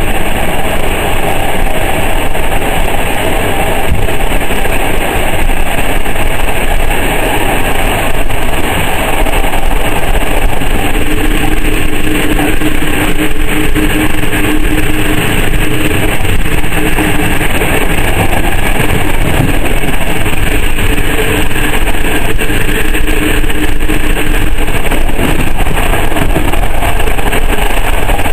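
Running noise of a passenger train coach at speed, heard from inside the carriage: a loud, steady rumble and hiss of wheels on rail. A steady hum joins in for about a dozen seconds in the middle.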